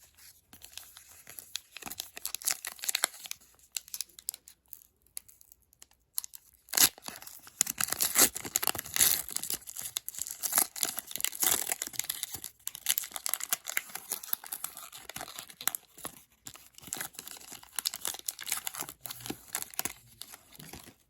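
Trading card pack wrapper being torn open and crinkled in the hands, a dense crackling rustle, fainter at first and louder from about a third of the way in.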